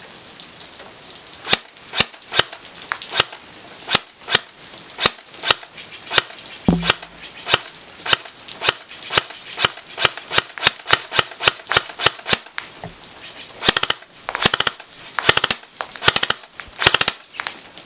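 CYMA Thompson M1928 airsoft electric gun firing: a string of sharp shots, about two or three a second, then several short rapid bursts near the end. A single dull thump about seven seconds in.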